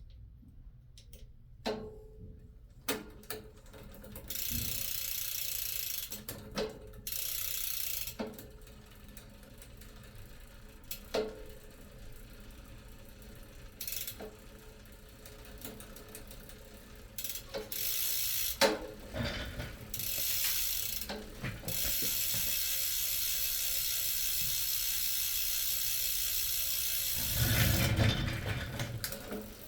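Rapid ratcheting clicks in runs of one to several seconds, the longest about five seconds near the end, with scattered single clicks and knocks of metal parts between them.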